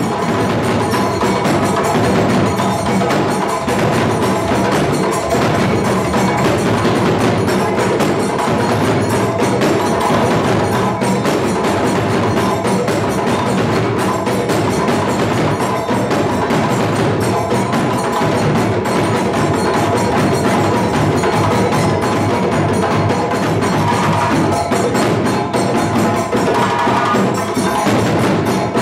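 Live West African djembe ensemble with balafon: several djembes playing fast, interlocking slaps and tones under the ringing wooden keys of a gourd-resonated balafon. It drives on steadily without a break.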